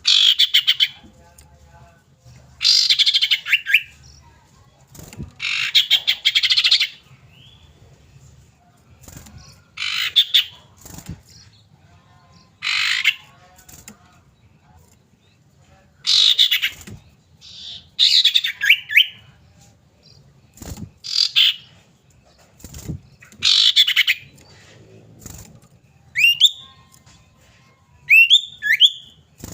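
Common iora (cipoh) calling: repeated dry rattling chatters, each about a second long, every few seconds, with a couple of short rising whistles near the end.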